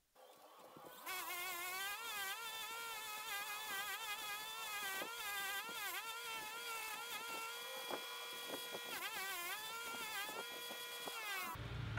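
Bench grinder with a wire wheel working a small steel handle: a buzzing whine whose pitch wavers up and down as the piece is worked against the wheel. It builds over the first second and cuts off suddenly near the end.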